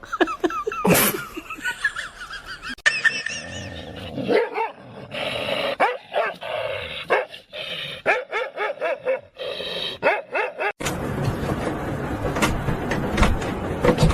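A dog barking and yipping in short, high calls, with the background changing abruptly several times.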